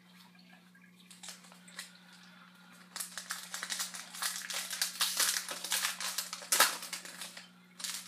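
Foil trading-card pack being torn open and crinkled, a few light rustles at first, then a dense run of crackling for about four seconds, sharpest near the end.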